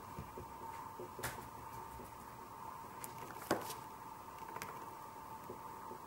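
Oil pastel and fingertips rubbing and dabbing on paper: soft scratchy strokes with a few light taps, the sharpest about three and a half seconds in, over a steady faint hum.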